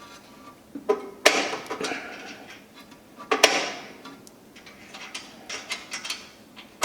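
Metal propane hose fittings clicking and clacking as the quick-connect hose adapter is handled and plugged in, with two louder clacks about one and three seconds in, then a run of lighter clicks.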